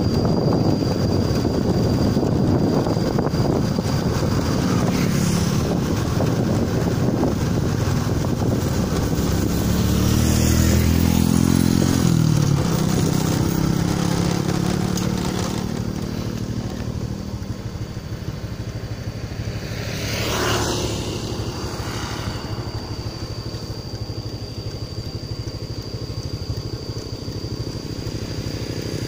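Motorcycle engine running while riding, with wind noise over the microphone. The engine note drops about ten to thirteen seconds in as it slows, and the sound gets quieter through the second half.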